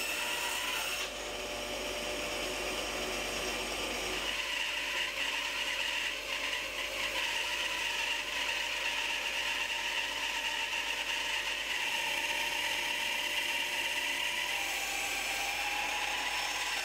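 Bandsaw blade cutting lengthwise through a small log, a steady mechanical sawing noise as the log is fed through, changing character about a second in and again about four seconds in.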